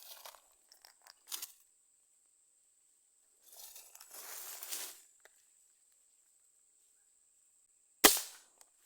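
A single gunshot about eight seconds in, sharp and the loudest sound, with a short fading tail. Before it come rustling and crunching sounds of movement through brush.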